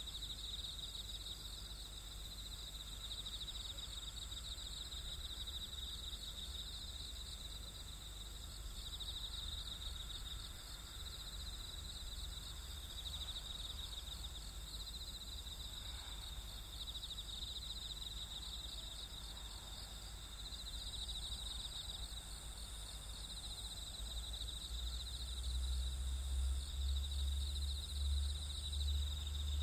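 Insects, crickets among them, chirring steadily, with the faint distant horn of the Ueda Kotsu round-window electric car around the middle. A low rumble builds up near the end.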